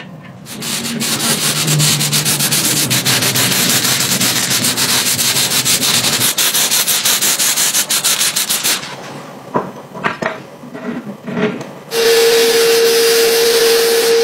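Spray painting: a loud, fluttering hiss of paint being sprayed onto metal frame parts, running for about eight seconds. A few light clicks and knocks follow. Then, about twelve seconds in, a sandblasting gun starts up in a blast cabinet with a loud, steady hiss carrying one steady tone.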